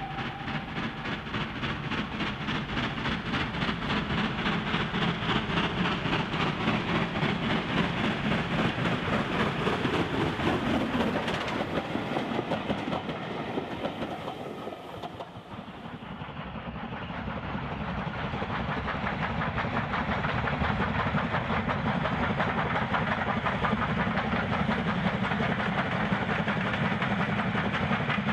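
Steam locomotive working a train past at speed: a rapid, steady beat of exhaust with wheel and rail clatter. The sound thins out briefly about halfway through, then builds again as a steam locomotive comes past once more.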